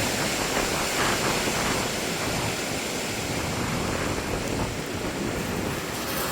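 Steady rush of strong wind with rain from a tornado's rear-flank downdraft (RFD) arriving, an even noise with no pauses.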